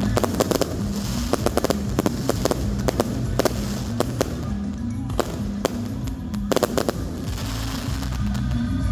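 Fireworks going off in rapid sharp bangs and crackles, several a second in clusters, with show music playing underneath.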